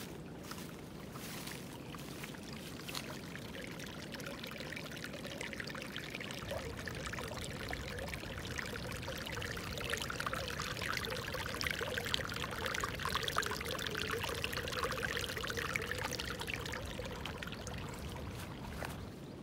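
Water trickling along a small irrigation ditch beside a rice paddy. It grows louder and more splashy for several seconds in the middle, then eases off near the end.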